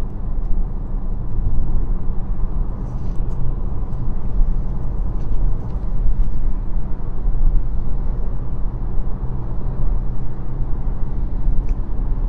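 Steady low rumble of a car's road and engine noise heard from inside the cabin while driving, with a few faint ticks.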